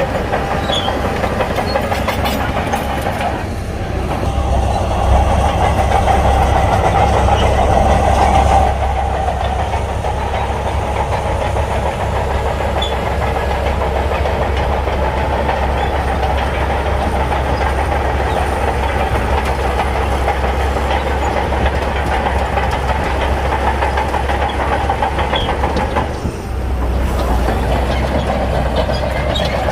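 Shantui crawler bulldozer working in sand: its diesel engine runs steadily under load while the steel tracks clatter. The engine gets louder for a few seconds near the start, then settles.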